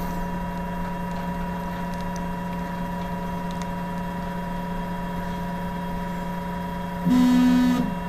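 UP Box 3D printer humming steadily during its automatic bed-levelling run. About seven seconds in, its stepper motors whine loudly for under a second as the platform moves to the next calibration point.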